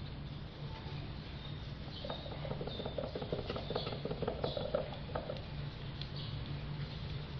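Paintbrushes dabbing resin into fibreglass mat in a wooden mould: a quick, irregular patter of soft wet taps, busiest in the middle, over a steady low hum. This is the wetting-out stage, working the mat until it is soaked through with resin.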